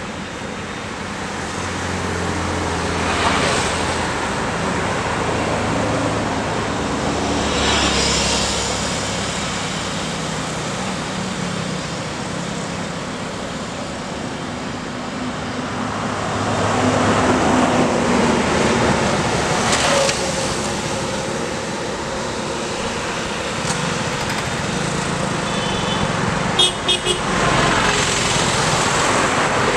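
Road traffic on a divided highway: cars, motorcycles, autorickshaws and trucks passing, tyre and engine noise rising and falling as each goes by. A few short vehicle horn toots near the end.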